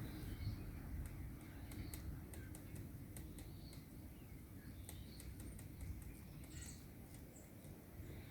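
Downy woodpecker tapping and pecking at oak bark while foraging, heard as irregular light taps, with a faint high bird chirp late on over a low rumble of background noise.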